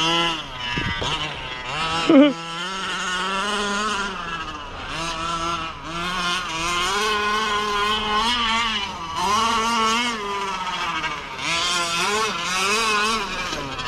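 Two-stroke petrol engine of a 1/5-scale 30 Degrees North DDT RC car revving up and down under throttle as it is driven, with a sharp brief knock about two seconds in.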